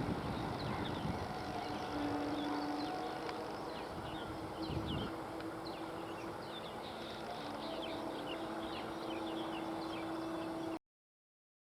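Small birds chirping over and over against a steady low rumble with a faint hum, the last of an electric local train's passing. The sound cuts off abruptly near the end.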